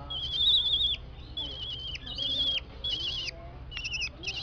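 Small owl giving a run of high, quavering chirps, about six in a row, each roughly half a second long, while its head is being stroked.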